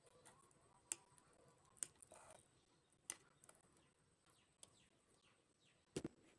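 Near silence: room tone broken by a few faint, sharp clicks about a second apart.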